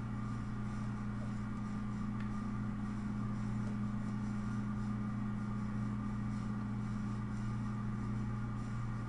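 Steady low electrical hum with two constant tones over a faint even hiss, unchanging throughout.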